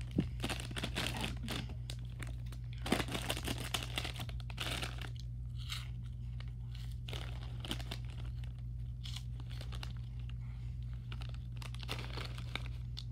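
Snack bag of Pirate's Booty puffs torn open and crinkled for the first few seconds, then crunching as a puff is chewed, with more crinkling of the bag near the end.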